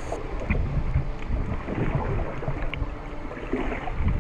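Muffled underwater rumble of moving water and bubbles around a swimmer diving in the sea, heard through an underwater camera.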